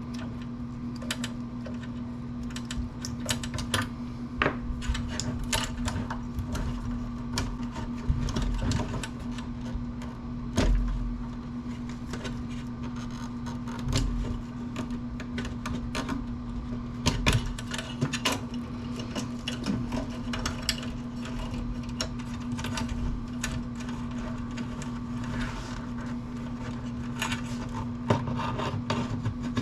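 Hand tools working on a metal amplifier chassis during teardown: irregular clicks, clinks and a few heavier knocks of metal parts, over a steady low hum.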